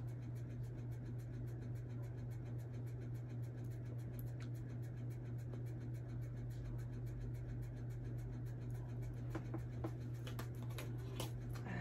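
A steady low background hum, with a few faint light clicks and scratches, mostly near the end.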